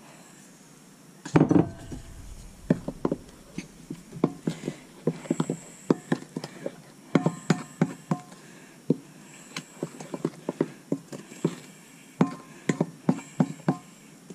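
Wooden spoon stirring flour into batter in a stainless steel mixing bowl, giving irregular knocks and scrapes against the bowl. A heavier thump comes about a second and a half in.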